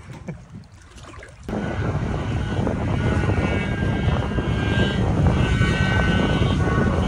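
Kawasaki stand-up jet ski's two-stroke engine running at speed, coming in abruptly about a second and a half in and then holding steady. Before it, only wind and water.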